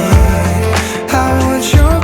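Background pop music with a steady beat: a pitched melody over a sustained bass, with two deep bass hits, one just after the start and one near the end.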